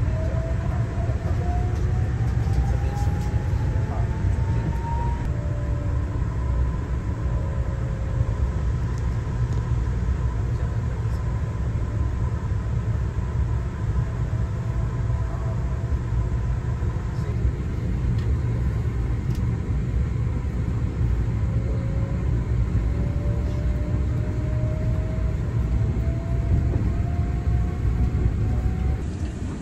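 Cabin sound of a Taiwan Railways EMU3000 electric multiple unit running: a steady low rumble from wheels and track, with the traction motor whine rising in pitch over the first few seconds and again in the second half as the train picks up speed.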